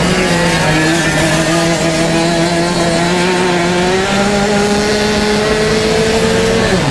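Racing kart engine at full throttle, its pitch climbing slowly as the kart gathers speed down a straight, then falling sharply near the end as the throttle is lifted for the next corner.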